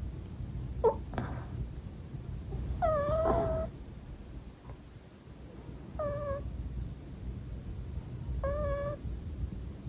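Flat-faced exotic shorthair cat snoring in its sleep: a low rumble with a high, squeaky whistle on the breaths, about every two and a half seconds, three times.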